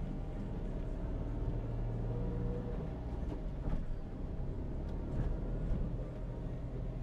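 Perodua Myvi heard from inside the cabin, driving slowly over a rutted sandy dirt track: a steady low engine and tyre rumble, with a few light knocks.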